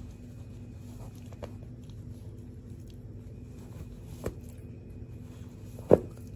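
A dog chewing and tugging at a fabric soccer-ball toy on carpet: soft scuffing with a few knocks, the loudest thump near the end, over a steady low hum.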